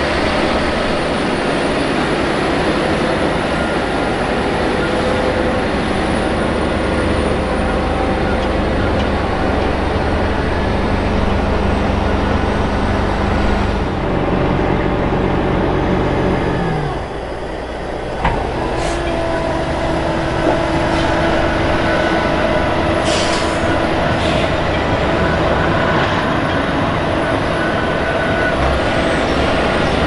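Heavy diesel engine of a John Deere 9230 four-wheel-drive tractor running steadily under load. A little past halfway its note falls away and gives way to another steady diesel engine hum with a higher whine in it.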